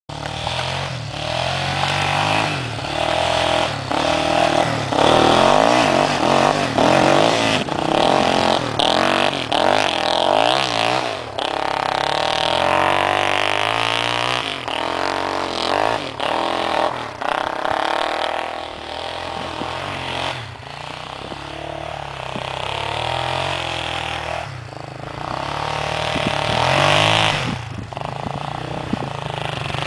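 Sport quad ATV engine revving up and falling back again and again as it is ridden through snow, its pitch rising and dropping with the throttle.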